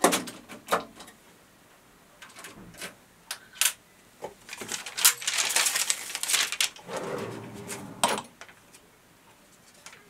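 Handling sounds at an NCR Class 6000 mechanical cash register: a run of sharp clicks and knocks, then a few seconds of paper rustling as the long printed tape is pulled away.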